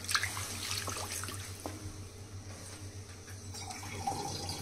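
A wooden spatula stirring a thin, watery soy-and-tomato gravy base in a hot steel pan, with water just added: the liquid bubbles and sizzles with soft scrapes and splashes. A steady low hum runs underneath.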